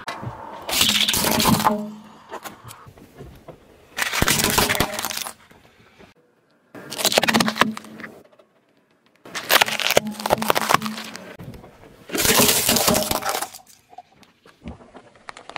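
A car tyre rolling slowly over objects and crushing them one after another: a plastic Rubik's cube, a bell pepper and plastic toys. It comes as five separate bursts of cracking and crunching, each a second or so long, with short quiet gaps between them.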